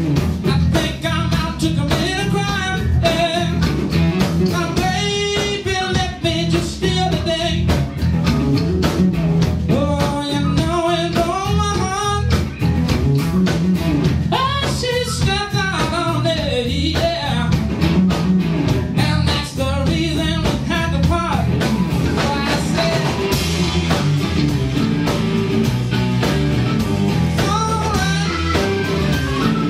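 Blues-rock band playing: singing over electric guitar, bass and drums, loud and steady.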